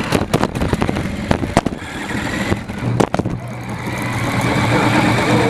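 Radio-controlled car driving, heard from the camera mounted on it: rattling with many sharp knocks over the ground, then from about halfway a steady motor whine and tyre noise that slowly grows louder.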